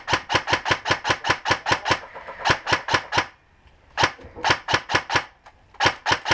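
Airsoft electric gun firing full-auto: several bursts of rapid sharp clicks, about a dozen shots a second, with short pauses between bursts.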